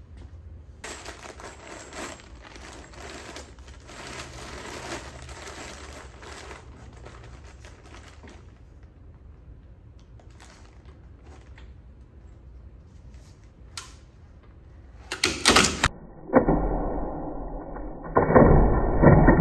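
Plastic bag crinkling and loose metal bolts clinking as hardware is piled into a cardboard box stacked on a loaded splitter test rig. About fifteen seconds in there is a sharp crash, followed by heavy, loud clattering and thudding from the weight stack.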